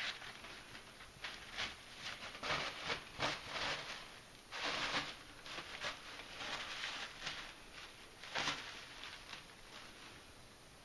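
Toilet paper rustling and crinkling in irregular bursts as a kitten pounces on it and paws through the pile, dying away near the end.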